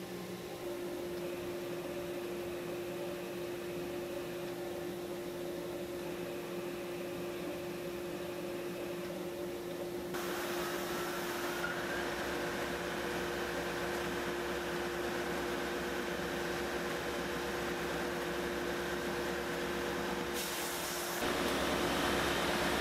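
Wide-belt sander running with a steady hum and a constant tone while its conveyor carries veneered panels through. The sound turns louder and hissier about ten seconds in and steps up again near the end.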